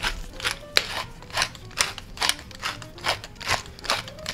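Wooden pepper mill grinding peppercorns: repeated twisting strokes, about three crunchy grinds a second.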